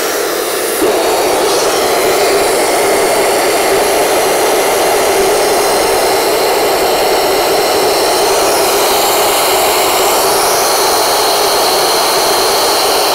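TERRABLAST single-nozzle dust suppression device running on compressed air and water: a loud, steady rush of air atomising the water into a fine mist. It gets a little louder about a second in.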